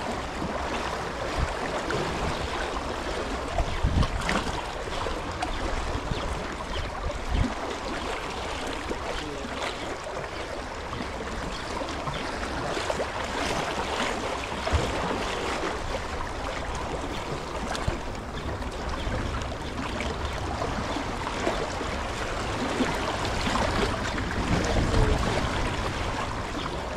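Sea water washing and splashing against breakwater rocks, as a steady rush, with a few sharp knocks, the loudest about four seconds in.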